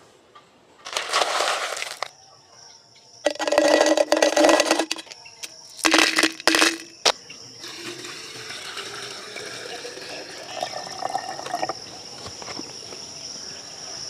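Water poured and splashing into a small plastic fish tank in three loud bursts, with a click just after. After that a steady high insect buzz continues.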